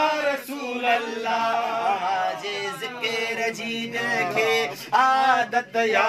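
Men's voices singing unaccompanied, a chant-like melody in long drawn-out notes.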